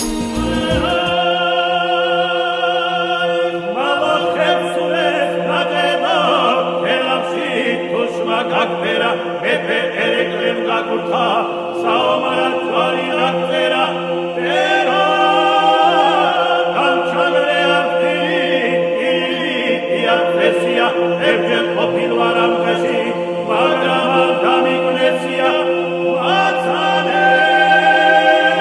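Background music: a choir singing in several parts over a held low note.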